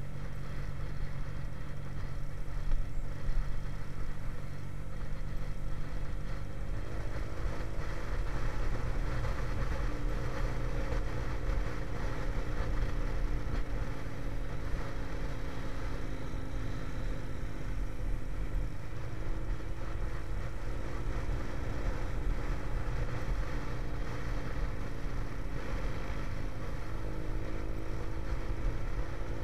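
Motorcycle engine running on the move, with steady wind and road rumble; the engine's pitch climbs about a quarter of the way in, sags past the middle and climbs again near the end as the revs change.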